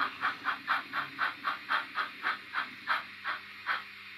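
Recorded steam chuffing from a DCC sound decoder in a 00 gauge model steam tank locomotive, played through the model's small speaker as it runs: about four chuffs a second, spacing out near the end as the locomotive slows.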